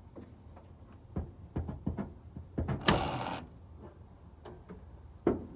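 Clicks and knocks of hand tools and metal parts being worked on a truck's brakes during bleeding, several in quick succession, with a short hiss about three seconds in and a sharper knock near the end.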